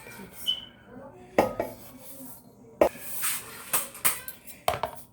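Several sharp clinks and knocks of a utensil and bowl being handled, with rustling between them.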